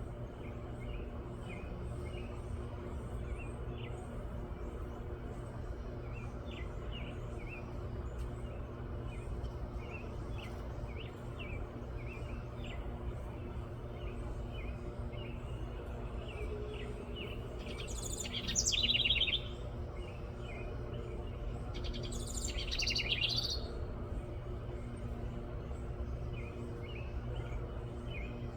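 Wren vocalizing: a steady run of soft, short chips, then two louder, rapid bubbling trilled songs a few seconds apart past the middle, over a steady low background rumble.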